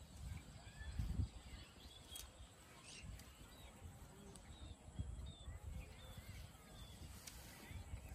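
Quiet outdoor ambience: scattered faint bird chirps over a low rumble that swells briefly about a second in and again around five seconds.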